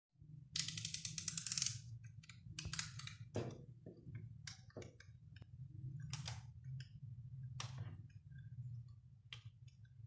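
Snap-off utility knife blade cutting through a bar of soap in a series of separate crisp cutting strokes, the first one the longest. A steady low hum runs underneath.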